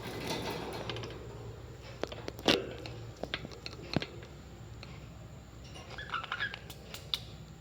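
Parrots chirping briefly about six seconds in, among scattered sharp clicks and taps, one loud tap about two and a half seconds in.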